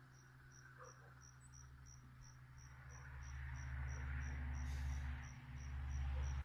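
Crickets chirping steadily, about three chirps a second. Under them a low hum grows louder through the second half and cuts off abruptly at the end.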